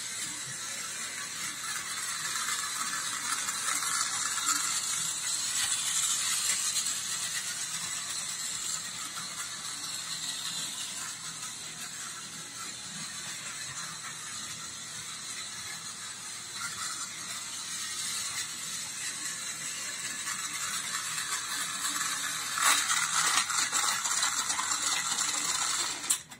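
Battery-powered Plarail toy tram running along plastic track: a steady high motor whine with the rattle of its wheels and gearing, growing louder and softer as it comes and goes. It is loudest for the last few seconds, then cuts off suddenly as it is stopped.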